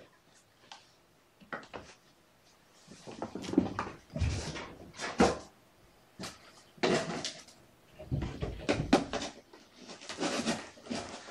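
Cat litter being scraped and scooped in a litter box: irregular gritty scraping and rustling with small clicks, starting about three seconds in.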